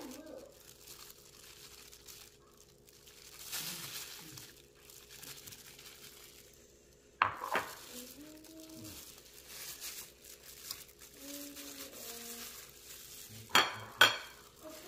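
Hands in thin plastic disposable gloves crinkling and rustling while pressing chicken into breadcrumbs, with a sharp clink of dishes about seven seconds in and two more in quick succession near the end.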